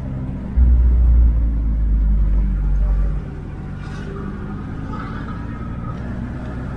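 Low rumble of a vehicle on the move, heaviest from about half a second in until about three seconds in, then settling to a steadier, quieter hum.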